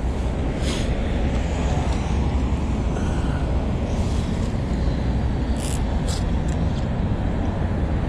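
Steady low rumble of road traffic, with a few faint clicks about a second in and again near six seconds.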